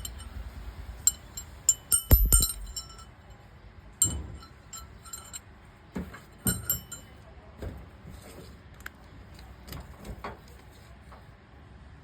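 Hard metal parts clinking and knocking as they are handled: a scatter of sharp clicks, several with a short ringing metallic tone, in clusters, with a couple of heavier knocks about two seconds in. No drill motor is running.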